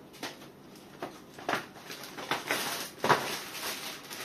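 Packaging being handled: plastic clothing wrappers and cardboard gift boxes rustling and crinkling in a run of short, sharp sounds, the loudest about three seconds in.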